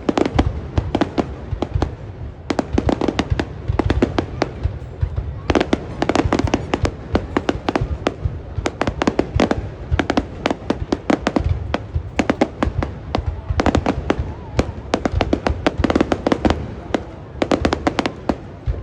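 Aerial fireworks going off in a dense barrage of bangs and crackles in quick succession over a steady low rumble, letting up briefly now and then.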